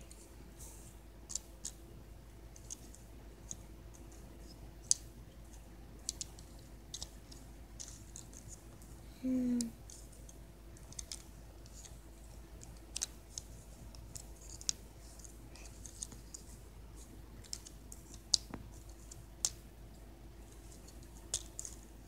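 Plastic clicks and snaps from the joints and parts of a Battleslash Transformers figure as it is worked by hand from one mode to the other, coming as scattered, irregular clicks. About nine seconds in there is a brief voice sound.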